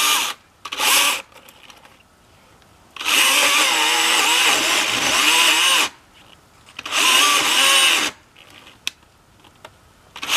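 Husqvarna 120i battery chainsaw cutting into a tree trunk in bursts: a short burst near the start, a long cut of about three seconds beginning about three seconds in, another of about a second near seven seconds, and a brief one at the end, with quiet pauses between. Its motor whine dips in pitch as the chain bites into the wood.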